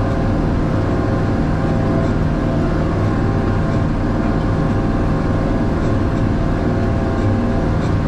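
Tractor engine running steadily under load while pulling a disc harrow through freshly turned sod.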